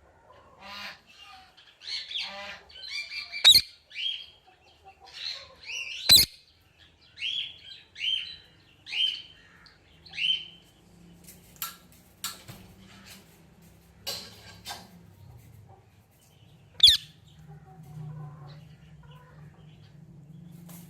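A parrot calling: a string of short chirping calls, a series of quick ones in a row partway through, broken by a few loud, sharp squawks, the last of them well into the second half.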